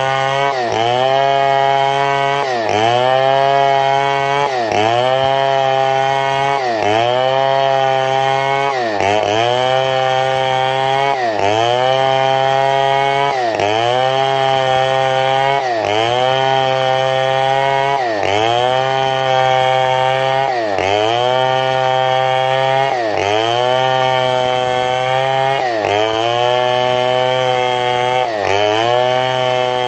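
Chainsaw at full throttle ripping a mahogany log lengthwise along the grain. The engine note sags and recovers about every two seconds as the bar is worked down into the cut under load.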